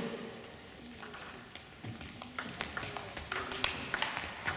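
Table tennis rally: the ball clicking sharply off rubber-faced bats and the table in a quick alternating run, starting about two seconds in.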